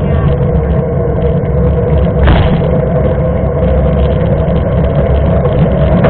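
Wind buffeting the microphone of a bike-mounted action camera, with tyre and drivetrain noise from a mountain bike rolling on asphalt: a steady, loud low rumble. A short knock about two seconds in.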